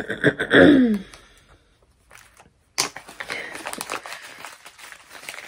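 A short vocal sound sliding down in pitch, like a sigh, near the start; then, from a little under three seconds in, the steady crackly rustle of packaging being handled and opened to get at a set of metal keychain clasps.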